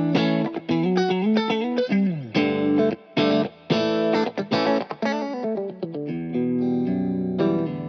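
Vola OZ RV TNC electric guitar played with distortion: short choppy chords cut off in rhythm, a downward slide about two seconds in, then longer held chords near the end.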